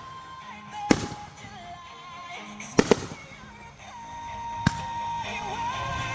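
Fireworks bursting overhead: three sharp booms about two seconds apart, the middle one doubled, over background music with a held sung note.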